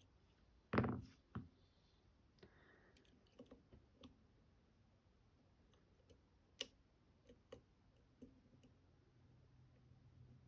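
Light clicks and ticks of lock picks working the pins of a two-row Idaho tier-key lock, with a louder knock about a second in and a smaller one just after.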